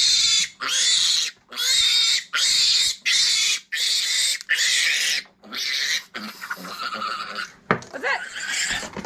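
Week-old Meishan piglet squealing loudly and repeatedly while held down after castration, about eight high-pitched squeals in quick succession, roughly one a second. A sharp click comes near the end.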